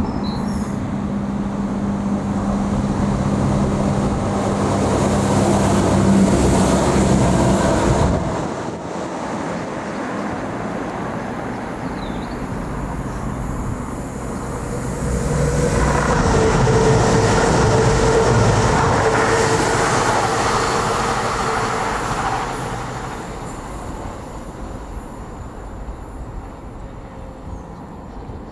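Train running through the station at close range: loud with a steady low engine-like hum that drops away suddenly about eight seconds in. A second surge of train noise follows about halfway through, with a steady higher hum, and fades near the end.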